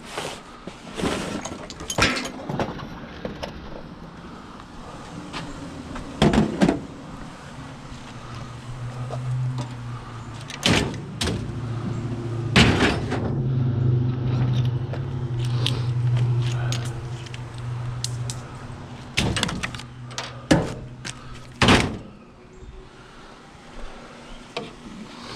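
Scrap being shifted and rearranged on a trailer: a string of sharp clanks and thunks, about nine in all at irregular intervals. A low steady hum runs from about eight to nineteen seconds in.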